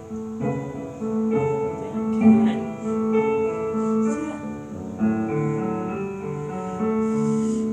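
Instrumental music from a cartoon soundtrack, with sustained melodic notes, playing through a television's speaker.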